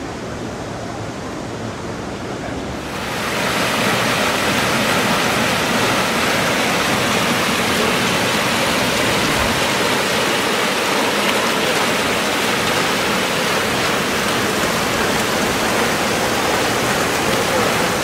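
Plaza fountain's rows of water jets splashing into a shallow pool: a steady rushing of falling water that gets much louder about three seconds in.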